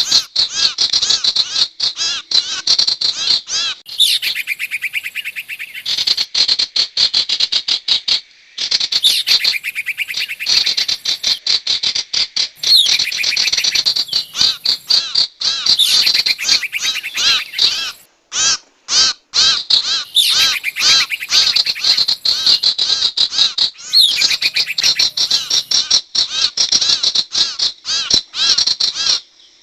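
Sirtu bird lure recording: rapid, dense chattering calls repeated over and over, high-pitched and loud, with brief breaks a few times. Played as bait audio to draw in wild sirtu birds.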